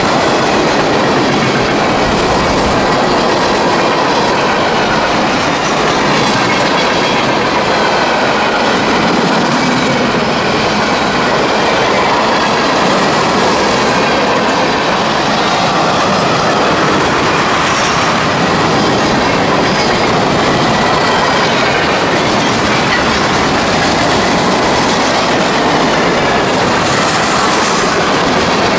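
Freight train cars rolling past at speed: a steady, loud clatter of steel wheels on the rails, with faint high squealing tones from the wheels.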